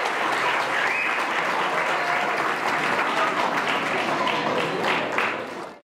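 Crowd applauding, a dense patter of many hands clapping, fading out quickly at the very end.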